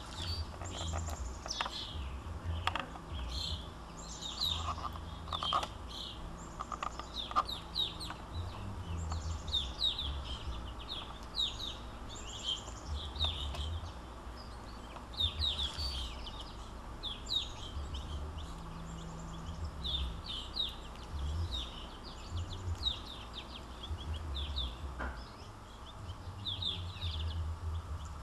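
Small songbirds calling with many short, high chirps, often in quick runs, over a low background rumble.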